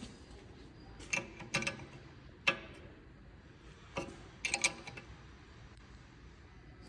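Metal hand tools clicking and tapping against a rear brake caliper and its brake-pipe fitting: about six sharp metallic clicks at uneven intervals, some in quick pairs.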